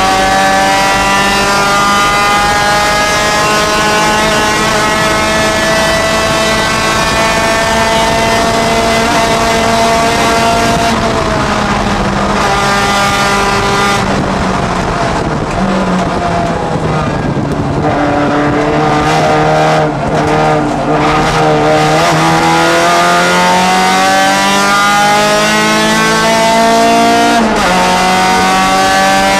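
Honda Challenge race car's four-cylinder engine heard from inside the cockpit: it pulls steadily up in revs along the straight, then the revs fall at about eleven seconds and stay low through the corner. It accelerates again, with a sudden drop in revs from an upshift near the end before climbing once more.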